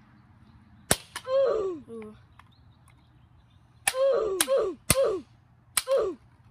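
A claw hammer striking a small battery-powered speaker on asphalt: one sharp hit about a second in, then four quick hits close together in the second half. Each hit is followed by a short pitched sound that falls in pitch.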